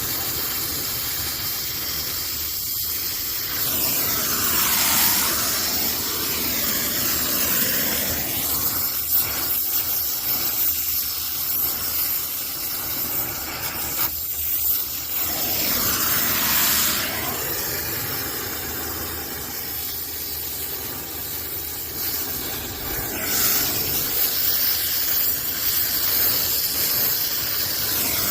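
Brazing torch flame hissing steadily while copper refrigerant lines are brazed onto a heat pump, its hiss sweeping up and down in pitch three times.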